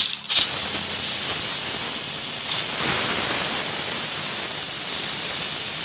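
Pressure cooker venting steam through the valve on its lid: a loud, steady hiss that starts a moment in, as the built-up pressure is released after cooking.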